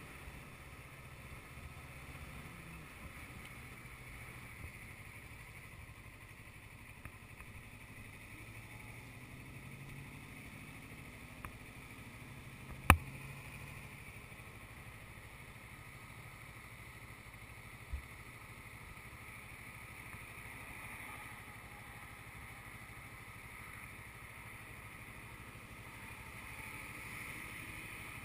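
Motorcycle engine idling and pulling at low speed in slow traffic, a steady low hum whose pitch rises a little now and then. A sharp knock about 13 seconds in, and a lighter one near 18 seconds.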